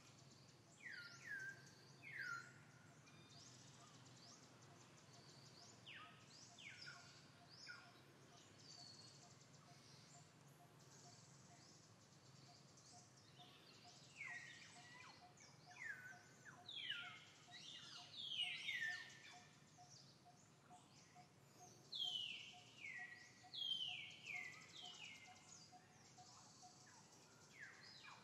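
Forest birds calling: repeated whistled calls that sweep steeply downward, coming in clusters, loudest in the second half. Under them runs a faint, even series of low pips, about two a second.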